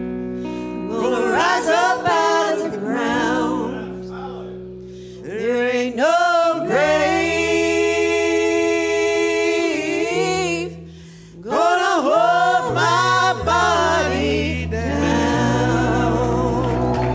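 Live gospel singing: a mixed group of men's and women's voices singing in harmony with upright bass and a small band, holding one long chord in the middle of the passage.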